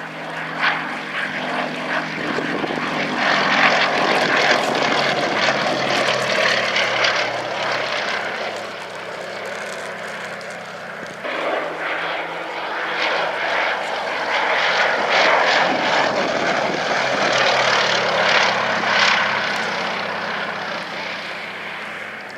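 Westland Lysander's Bristol Mercury nine-cylinder radial engine and propeller running hard in flight. The sound swells and fades twice, with a sudden change about halfway through.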